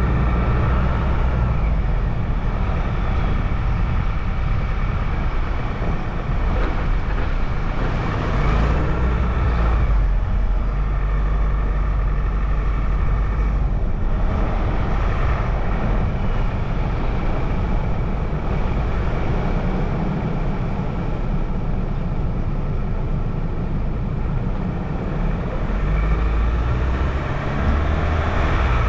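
Car driving along a road: a steady low rumble of engine and road noise that swells and eases a little as it goes.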